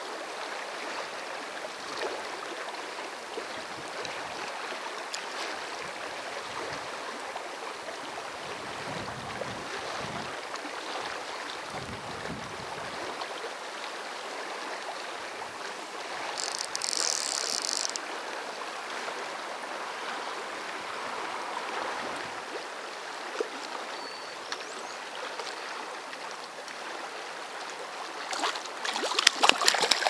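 River current flowing, a steady rush of moving water. About two thirds through comes a brief high hiss, and near the end water splashes close by, getting louder.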